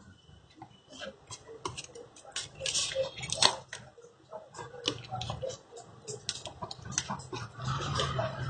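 Irregular light clicks and scrapes of plastic cards being worked under a Moto E4's glued display to pry it off the frame, with a low hum underneath from about two seconds in.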